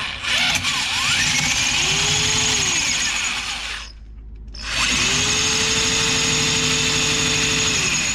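Electric drill boring into hard steel, running, cutting out for about a second midway, then starting up again. The stopping every few seconds is put down to the drill's own overload cutoff tripping as it gets too hot.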